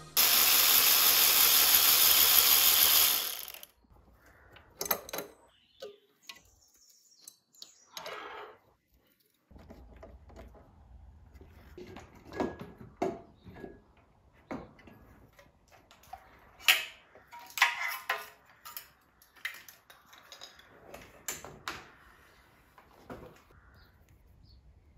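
A loud, steady hiss for about three and a half seconds that cuts off. Then scattered small clicks, taps and rattles of hands handling individual throttle bodies and the throttle position sensor's plug and wiring.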